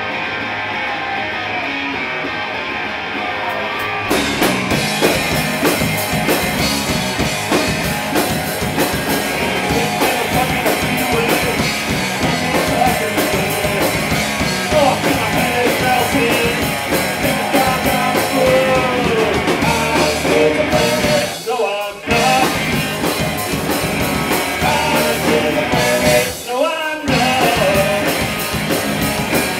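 Live rock band playing: electric guitars and a drum kit. A thinner opening gives way to the full band about four seconds in, and the band stops for a moment twice in the last third.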